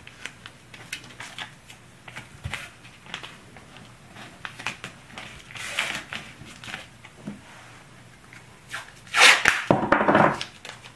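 Blue painter's tape being handled and pressed down by hand along a mold's edges on a wooden bench: scattered light taps and rubbing, then a louder, longer rip of tape pulled off the roll near the end.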